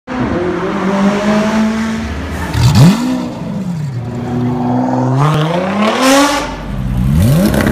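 Supercar engines revving and accelerating in quick succession. A steady run gives way to a sharp rev blip about two and a half seconds in, then a long climb in pitch that drops off, and another quick rev near the end.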